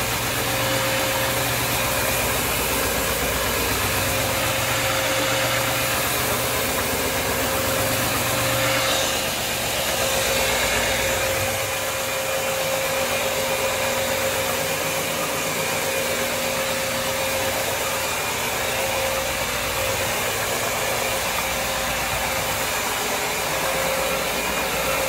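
Electric CRB counter-rotating brush floor machine running steadily as its brushes scrub wax off a wet linoleum floor: a constant motor whine over a steady hiss, with a low hum that drops away about halfway.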